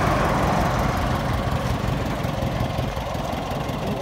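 Hindustan Contessa's four-cylinder petrol engine idling steadily, with a low, even pulse.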